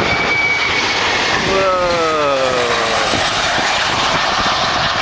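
Airliner passing low overhead: a loud, steady engine noise with a falling whine about two seconds in as it goes by.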